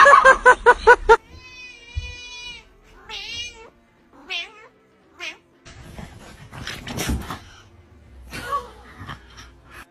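Cat meowing. It opens with a loud, quick run of about six short calls, then gives one long steady meow, followed by several shorter, wavering meows.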